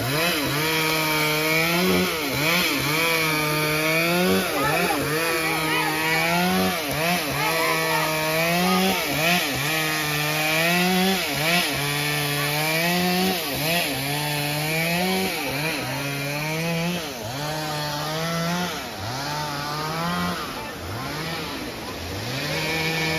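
Two-stroke chainsaw cutting a log. The engine holds high revs, drops back and climbs again every second or two as the throttle is squeezed and released.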